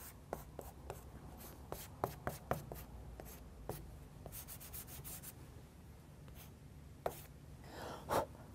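Chunky square charcoal block being worked on drawing paper in short strokes: a scattered run of light scratches and ticks as the block marks and drags across the paper.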